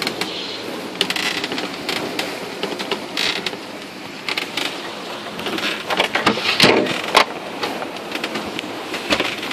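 A sailboat's woodwork and fittings creaking, clicking and knocking irregularly over a steady rush of noise as the boat works in a swell, with a few louder knocks past the middle.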